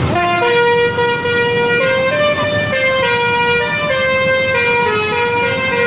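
Basuri telolet melody horn on a tour bus, sounded through roof-mounted horn trumpets, playing a tune. It is a continuous run of stepped notes, each held a fraction of a second.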